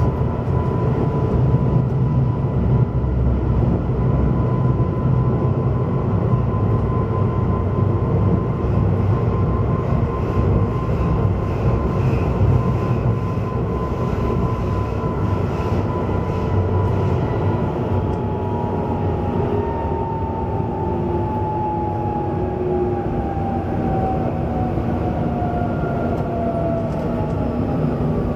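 Duewag B80D light rail car running, heard from on board: a steady low rumble of wheels on track with a whine from the drive. The whine holds steady, then falls steadily in pitch over the last third as the car slows.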